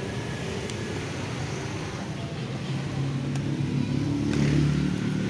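A motor vehicle engine running steadily, swelling louder about four and a half seconds in.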